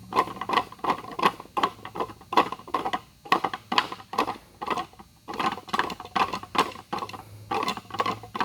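Rapid, irregular knocks and clatter, about two or three a second, as the magic box is repeatedly rotated and stopped sharply in the hands to set its heavy steel disc turning inside and work the lid loose.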